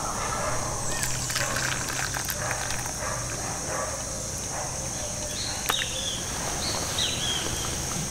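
Coffee being poured from a moka pot into a wooden kuksa cup, over a steady high-pitched drone and a few short, high chirps that fall in pitch.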